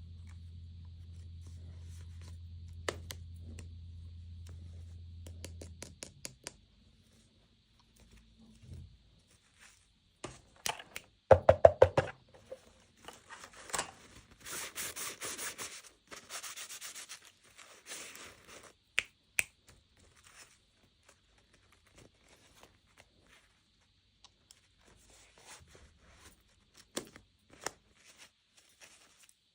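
Hands opening and handling toy packaging: scattered clicks and taps, a burst of louder crackling about eleven seconds in, then several seconds of rustling and scratching, then only occasional taps. A low hum runs for the first six seconds, then stops.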